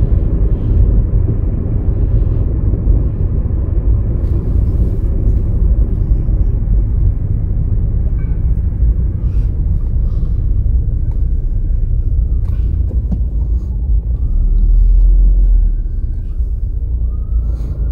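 Car engine and tyre noise heard from inside the cabin while driving slowly, a steady low rumble, with a heavier rumble for a second or two about three-quarters of the way through.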